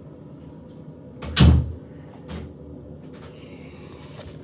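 A single heavy thump about a second and a half in, followed by a lighter knock, with faint clicks and rustling near the end.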